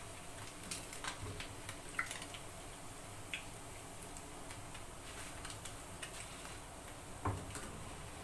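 Hot oil crackling softly in a frying pan as small battered fish fry, with scattered light ticks and clicks of a fork and slotted spoon against the pan as pieces are lifted out, and one louder clink near the end.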